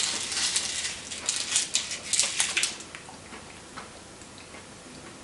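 A candy wrapper crinkling in the hands as a chocolate is unwrapped: a dense run of crisp crackles for the first two to three seconds, then only a few faint crackles.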